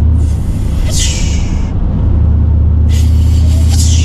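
Turbocharged Chevrolet Silverado pickup heard from inside the cab: a steady low engine and road drone, with two bursts of hiss over a second long, one at the start and one about three seconds in.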